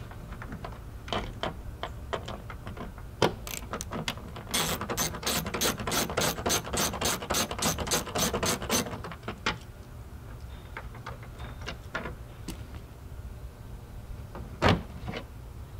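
Small hand ratchet with a screwdriver bit clicking as it turns out the screws of a BMW motorcycle's plastic tank panel. Scattered clicks, then a fast, even run of about four clicks a second for some four seconds, then a few more scattered clicks. A single knock comes near the end.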